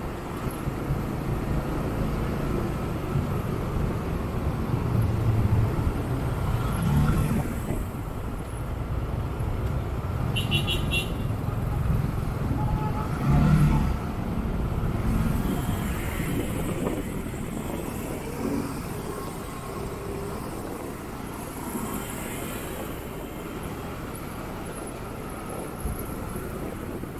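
Ride-along road noise from a motorcycle in city traffic: engine and tyre noise mixed with the sound of surrounding cars and motorcycles, swelling and easing as vehicles pass. A quick run of short high beeps comes about ten seconds in.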